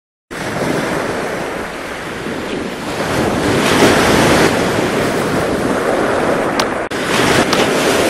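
Ocean surf and rushing water with wind noise on the microphone, swelling about four seconds in and dropping out for an instant near the end.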